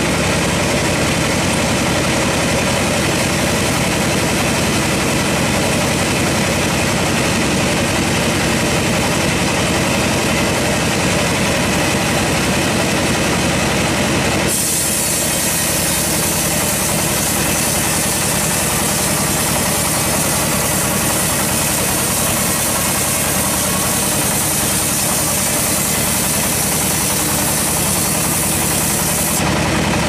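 Band sawmill running steadily, its blade cutting lengthwise through a waterlogged log with a constant machine drone and the hiss of the cut. The sound shifts abruptly about halfway through and grows brighter.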